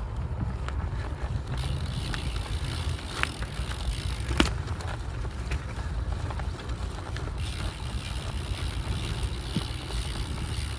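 Steady low rumble of travel along an unpaved trail, with a few sharp clicks and ticks, the loudest about four and a half seconds in.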